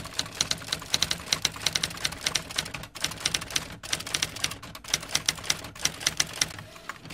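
Typewriter keys clacking in quick succession, several strikes a second, with brief breaks about three and four seconds in: a typing sound effect laid under text being typed out.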